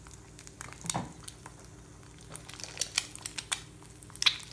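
Butter spitting and crackling around an egg frying in a carbon steel pan, a scatter of sharp pops that grows denser in the second half.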